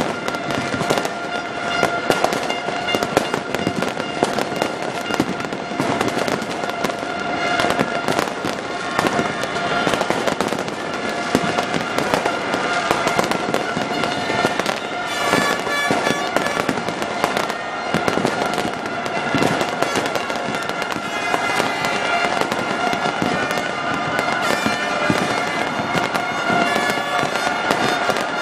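Dense New Year's fireworks display: continuous crackling and popping from many bursts, with no gaps. A steady horn-like drone is held underneath.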